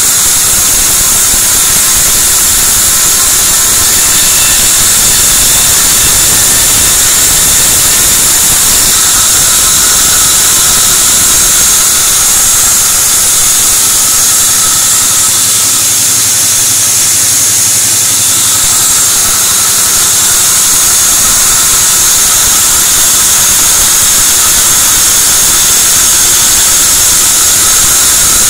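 Sawmill band saw running steadily and ripping white teak (gmelina) planks fed through its blade: a loud, unbroken hiss with a high whine.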